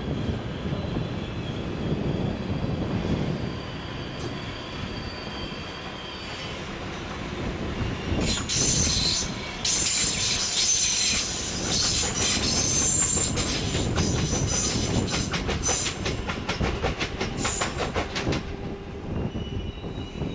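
Electric multiple-unit passenger train running out of the station with a low rumble. From about eight seconds in its wheels squeal high and loud as it crosses the points. This is followed by a quick run of wheel clicks over rail joints and switches that fades as the train draws away.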